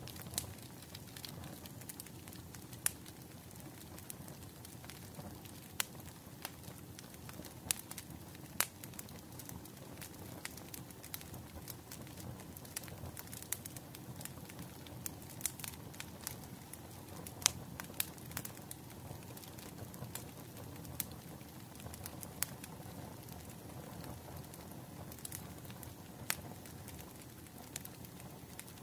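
Wood fire crackling: a steady low rumble of burning with frequent sharp pops and snaps scattered at irregular intervals.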